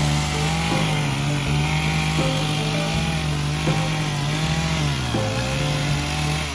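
Chainsaw cutting into a tree being felled, running steadily under load; its pitch sags about five seconds in, then picks back up.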